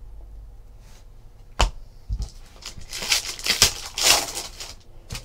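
A foil trading-card pack being torn open and crinkled by hand, a crackly rustle for over a second near the middle. Before it come a sharp click and a low thump; the click is the loudest sound.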